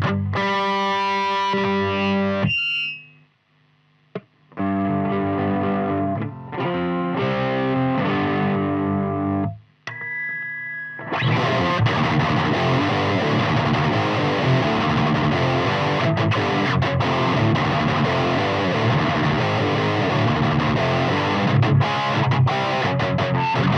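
Gibson SG electric guitar played through a Laboga Diamond Sound 20 amp's own overdrive, with no pedals, into a 2x12 cab with Eminence Man O War speakers, close-miked. Distorted chords ring, stop for about a second and a half, then return. After a short pause and a held note about ten seconds in, fast, dense riffing runs on.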